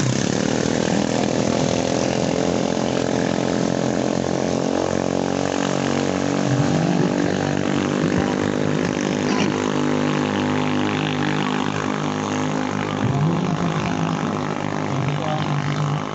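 Small longtail racing-boat (ketinting) engine running steadily at a nearly constant pitch.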